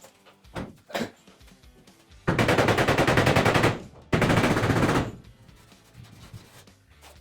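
A pneumatic tool, such as an air hammer or air body saw, working sheet metal in two bursts of rapid, even strokes: about a second and a half, then about a second. A couple of single knocks come before them.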